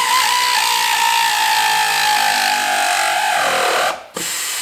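A power tool tightening the power steering pump's mounting bolts. One long motor whine slowly falls in pitch and cuts off a little before the end, then a short second burst follows.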